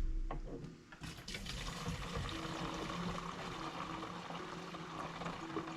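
Fuel being poured into a container: a knock right at the start, then a steady running pour from about a second in. The fuel is for a two-stroke chainsaw mix.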